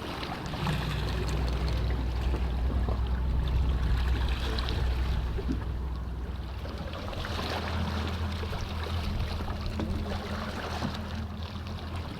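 Whale-watching boat's engine running with a steady low hum, under the wash of water along the hull.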